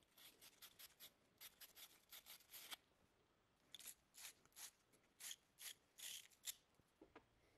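Faint scratchy scrubbing of a wire fitting brush on the end of a copper pipe, a quick run of short twisting strokes, a pause about three seconds in, then another run: cleaning the copper to bright metal before soldering.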